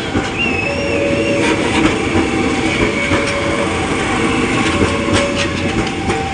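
A train running past at speed. Its wheels clatter over the rail joints, and a steady wheel squeal comes and goes.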